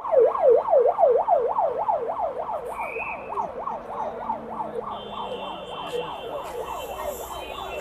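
Siren of a motorcade escort vehicle in a fast rising-and-falling yelp, about three and a half cycles a second, loud at first and fading.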